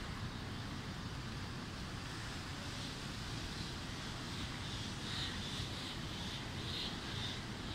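Steady noise of a heavy downpour over a city street, with a low wind rumble on the phone's microphone.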